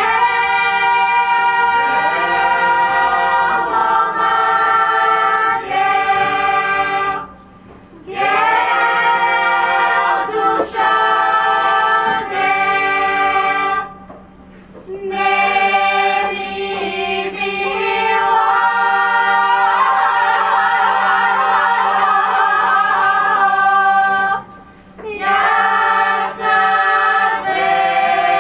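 Mixed choir of women's and men's voices singing a cappella in close harmony, in long phrases separated by brief pauses.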